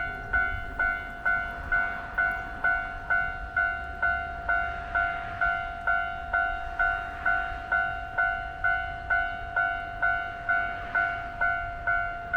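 Japanese railway level-crossing warning bell ringing "kan-kan" at a steady pace of about two strikes a second, each strike ringing out briefly before the next.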